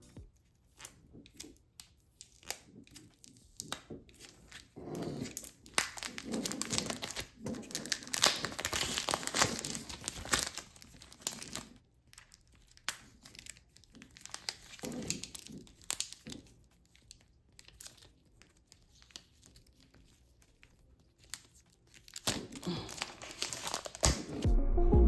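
Packaging being handled and opened: irregular crinkling and tearing rustles with a few short clicks, fading to a quieter lull late on.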